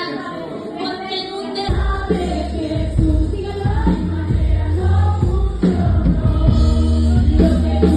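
Live worship music: several voices singing a Christian song with a band. Bass and drums come in about two seconds in.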